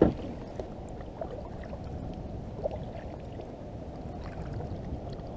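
Steady low wash of water and wind around a fishing kayak, with one sharp knock at the very start and a few faint ticks.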